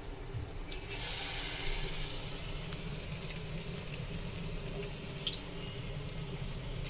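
Battered spinach pakoda dropped into hot oil in a kadhai, sizzling for a second or two about a second in, then fading.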